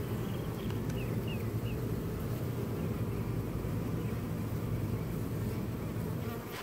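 Large honeybee colony buzzing on exposed comb, a steady low hum that fades near the end.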